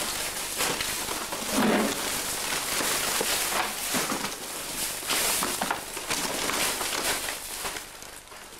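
Rubbish and rubble being disturbed, rustling and crackling continuously with scattered small knocks as a terrier is worked and lifted out of the pile.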